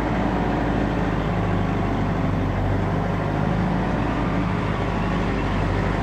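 Tractor engine running steadily at an even speed while towing a chicken-litter cruster.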